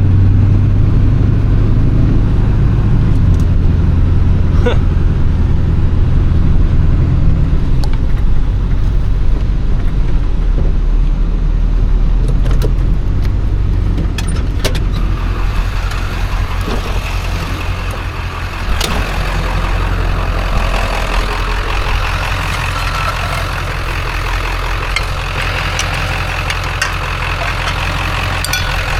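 A vehicle engine running with a steady low hum. About halfway through, the hum drops back and a rushing hiss comes up, with a few scattered clicks.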